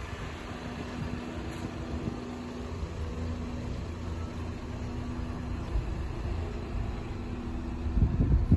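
Opel Zafira B engine idling steadily, a constant low hum and rumble. Near the end, wind buffets the microphone in a couple of louder low gusts.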